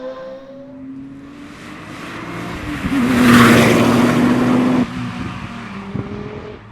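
Hillclimb race car passing at full throttle, its engine holding a steady high-revving note as it sweeps past loudest in the middle, then dropping off suddenly; another car's engine fades away at the start.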